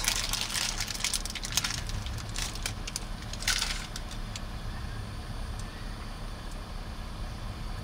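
Crunchy bites and chewing of a deep-fried fish-cutlet burger, with crackly clicks through the first couple of seconds. The paper wrapper rustles briefly as the burger is set down a little over three seconds in. A low steady rumble runs underneath.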